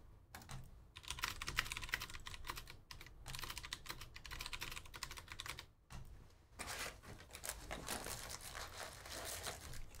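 Rapid clicking of typing on a computer keyboard, with a short pause about six seconds in; after it comes the rustle of a cardboard trading-card hobby box being opened.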